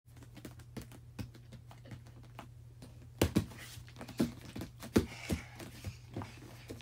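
Bare feet and hands thumping and slapping on a floor mat during a gymnastics walkover, with a cluster of sharp landings a little past the middle and lighter taps around them, over a steady low hum.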